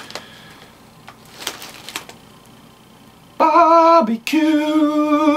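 A crinkly potato chip bag rustles a couple of times as it is handled. Then a man sings the words "barbecue flavor" on long held notes, starting about three and a half seconds in.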